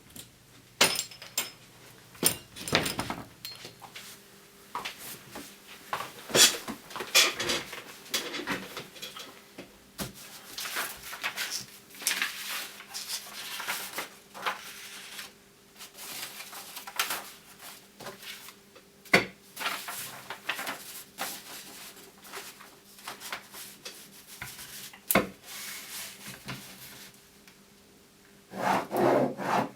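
Irregular rubbing and scraping of handled objects, broken by sharp clicks and knocks, over a faint steady hum, with a denser burst of rustling near the end.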